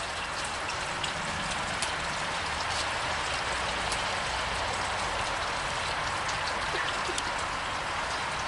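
A steady rushing hiss like rain or running water, with a few faint light clicks.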